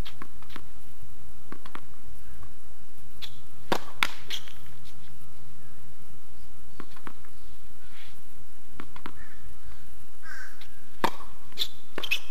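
Tennis ball bounced on a hard court and hit with a racket: a run of sharp pops as the ball is bounced before the serve, then a quick cluster of louder strikes near the end as the serve is hit, lands and is returned.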